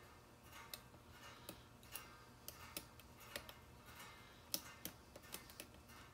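Faint, irregular clicks and ticks of a steel hook pick working the pin stack of a Euro-cylinder challenge lock under tension, pins clicking as they are pushed and set. The loudest click comes about four and a half seconds in.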